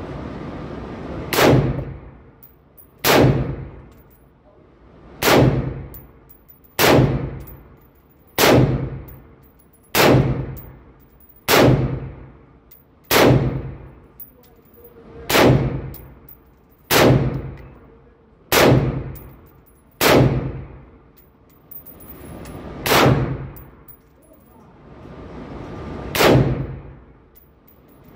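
Single shots from a 5.56 AR-15 rifle, fired at a slow, steady pace of about one every one and a half seconds, with longer pauses near the end. Each shot rings out with a long echo in an indoor range bay.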